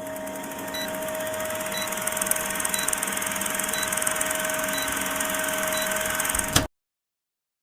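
A steady machine whirr with a constant hum and faint short beeps about once a second, cutting off suddenly near the end.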